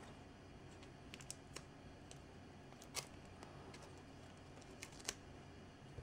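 Faint, scattered crinkles and clicks of masking tape being peeled off a painted plastic model part, the sharpest about three seconds in, over a low steady hum.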